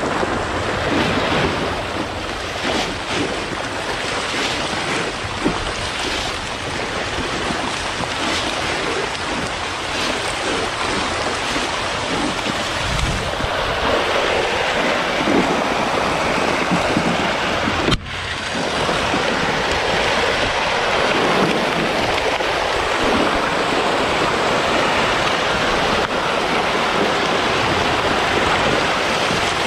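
A dense crowd of farmed catfish thrashing and splashing at the water's surface in a feeding frenzy, a continuous churning rush of water, with a brief break about eighteen seconds in.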